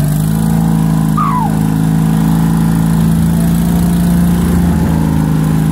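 Small vehicle engine running at a steady speed while driving, with a short falling squeal about a second in.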